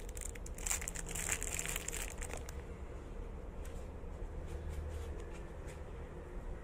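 Crinkly rustling of a hijab scarf being handled and pinned at the shoulder, with a run of small crackles and clicks in the first couple of seconds, then a steady low rumble.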